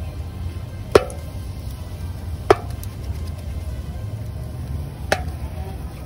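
Three short sharp knocks, about one, two and a half and five seconds in, over a steady low rumble. The middle knock is the loudest and rings briefly.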